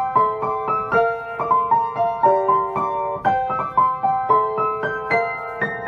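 Background music: a melody of struck, ringing notes over chords, a few notes a second.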